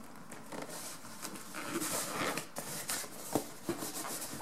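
Upholstery seat cover rustling and crinkling as it is handled and pulled down over a foam motorcycle seat, with a sharp tap a little after three seconds in.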